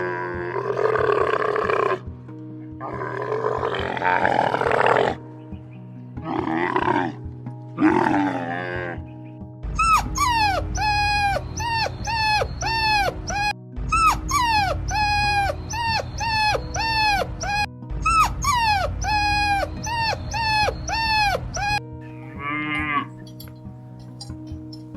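Recorded animal calls over a steady music bed. First come several rough growling calls. Then, from about ten seconds in, a long run of quick, repeated pitched calls, about two a second, each dropping in pitch.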